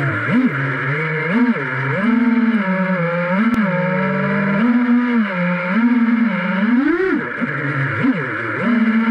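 FPV freestyle quadcopter's brushless motors and propellers whining, the pitch rising and falling over and over as the throttle is worked, over a steady rush of prop wash.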